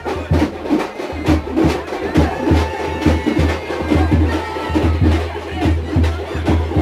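Procession drumming: a fast, steady rhythm of sharp drum strokes over deep booming beats.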